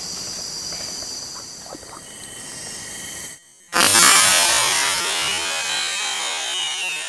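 Forest insects buzzing steadily in a high-pitched chorus. After a brief drop-out about three and a half seconds in, a louder, harsher buzz takes over.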